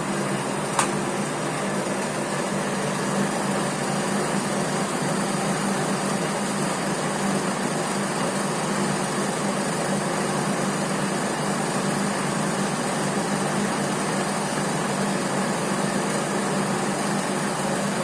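VDF E2 metal lathe running steadily under power, taking its first cut on a workpiece. One sharp click about a second in.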